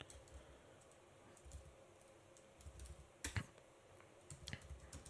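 Faint computer keyboard typing: a few scattered keystrokes, with one louder key click a little over three seconds in.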